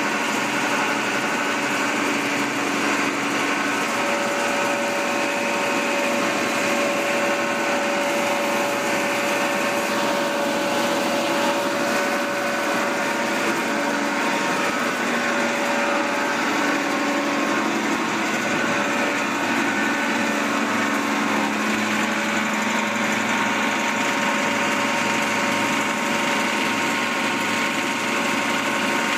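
Bread crumb production line running: electric motors and conveyor belts give a steady machine noise, with a few held tones that fade in and out.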